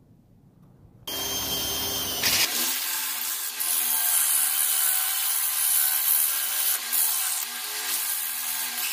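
Electric drill starting up about a second in and spinning a wooden knife handle held in its chuck. A second or so later, sandpaper pressed against the turning wood sets in as a steady rubbing hiss over the drill motor's whine.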